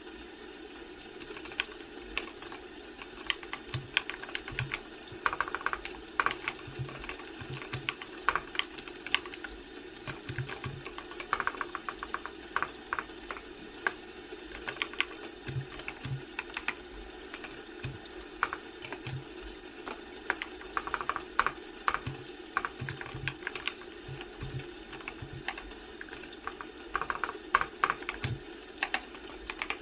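Typing on a computer keyboard: quick irregular runs of key clicks broken by short pauses, over a steady low background hum.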